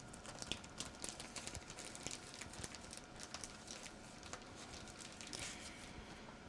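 Faint rustling of paper and cardstock being handled, with scattered light clicks and taps of paper pieces set down on a desk.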